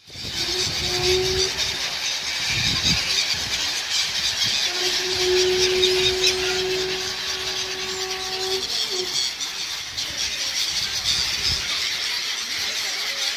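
A large flock of gulls calling all at once in a dense chatter of high squeals. A steady low tone, separate from the birds, sounds briefly about a second in and again for about four seconds near the middle.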